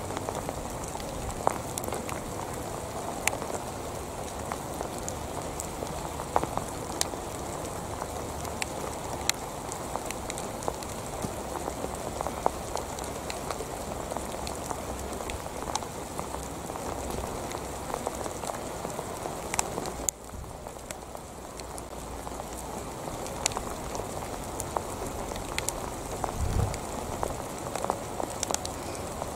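Steady rain, with many sharp drop ticks scattered through it. The level dips suddenly about twenty seconds in and then builds back.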